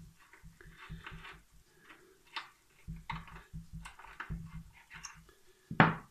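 A snapped lawnmower blade-bar bolt being turned out by hand with a screw extractor: irregular small metal clicks and scrapes with soft handling thuds, and one sharper, louder click just before the end.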